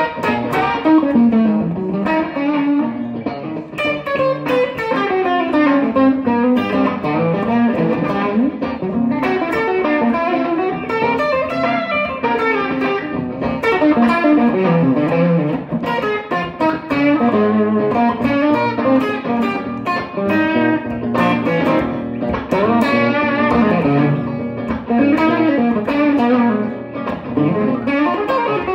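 Electric guitar, a Strat-style solid-body, playing continuous single-note blues lines with string bends and slides.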